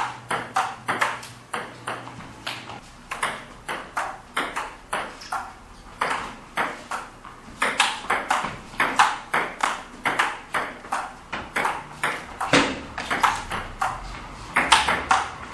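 Table tennis rally: the celluloid-type ball clicking sharply off the paddles and the table in a steady back-and-forth run, several clicks a second.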